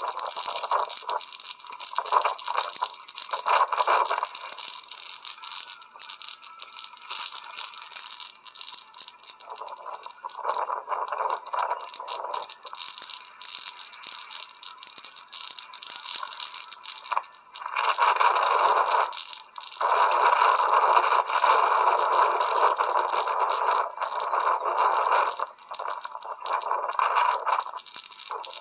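Riding a bicycle on wet roads: a continuous rattle and scraping noise with a hiss over it. It swells louder for several seconds in the second half.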